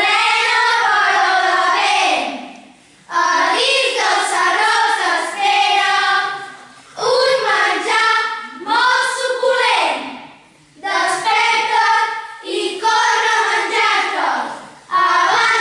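A group of children singing a song together, in phrases a few seconds long with short breaks between them.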